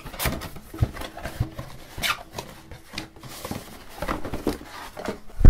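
Cardboard retail box being taken apart by hand: scattered rustles, scrapes and taps as flaps open and the inner cardboard packaging slides out, ending in a sharp thump.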